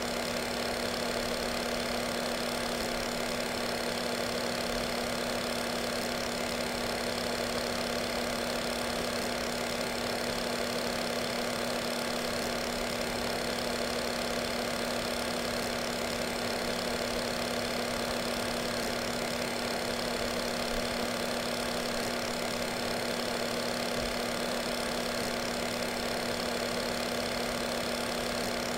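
A steady, unchanging drone with a constant low hum and a hiss over it, with no breaks or changes.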